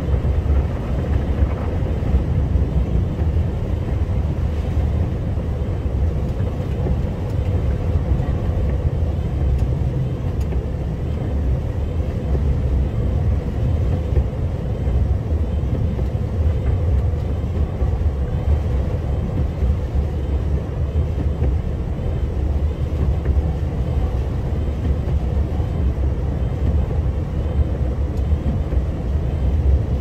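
Snowplow vehicle driving, heard from inside the cab: a steady low rumble of engine and road noise with a faint steady hum over it.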